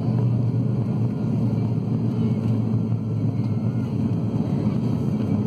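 Cabin noise of an ATR 72 turboprop airliner climbing after takeoff: a steady drone of the engines and propellers with a deep, even hum.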